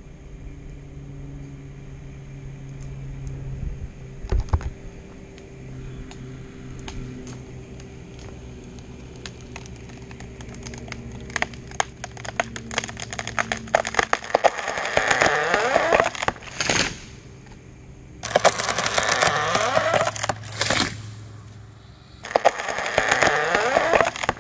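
Spruce trunk's hinge wood cracking and splintering as the tree is pulled over: scattered snaps that quicken and grow louder into a dense run of cracking. Louder bursts of splintering and crashing follow as the trunk goes over and lands. The hinge was cut with a shark gill cut, which leaves about double the usual hinge wood.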